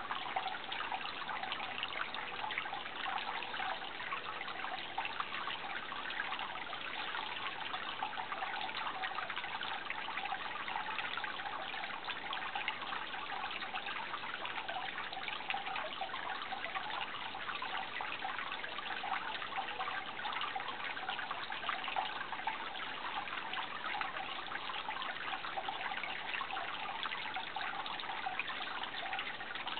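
Running water trickling and babbling steadily, an unbroken rush with fine splashing detail and no change in level.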